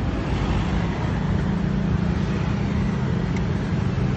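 Street traffic with a motor vehicle engine running close by: a steady low drone that grows a little stronger about a second and a half in.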